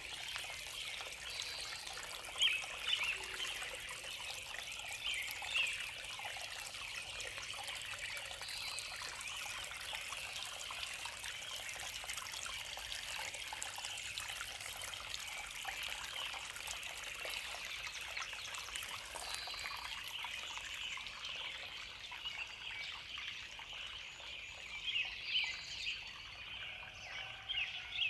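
Steady trickling water with occasional short bird chirps, a few near the start and a cluster near the end.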